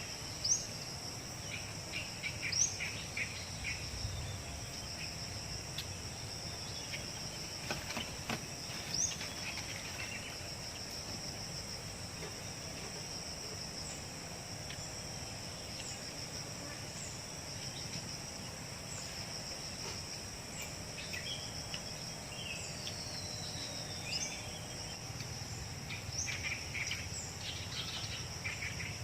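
Steady, high, pulsing chorus of insects, with short rising bird chirps now and then and a faint low background rumble.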